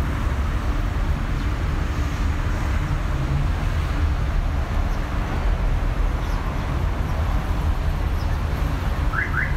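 Steady city street traffic noise, a continuous low rumble of passing cars, with two short rising high chirps near the end.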